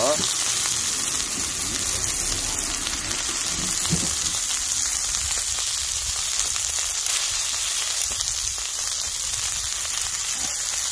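Hanwoo beef steak and king oyster mushrooms sizzling steadily on a hot stone grill plate.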